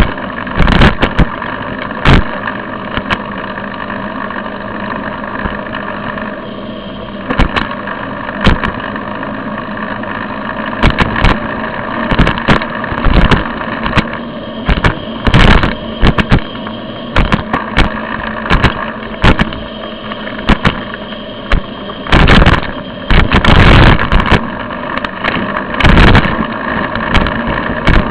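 Road noise picked up by a camera mounted on a moving bicycle: a steady hum with frequent sharp knocks and rattles as the bike and mount jolt over the pavement, more of them in the second half.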